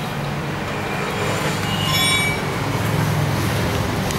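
Scooter engine running with a steady low hum. A brief high ringing tone sounds about two seconds in.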